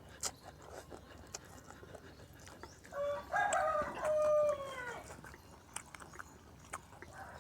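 A rooster crowing once, about three seconds in: a single crow lasting about two seconds that drops in pitch at the end. Scattered faint clicks and taps around it.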